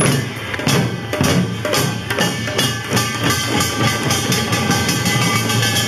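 Korean pungmul folk percussion: many hand-held barrel drums beaten together in a fast, driving rhythm, with sustained ringing tones above the drumbeats.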